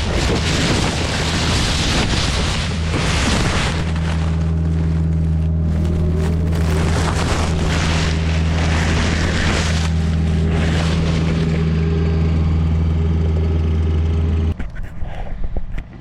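Excavator's diesel engine running steadily under load, with a rough scraping and crunching layer from brush being dragged. The sound cuts off suddenly near the end.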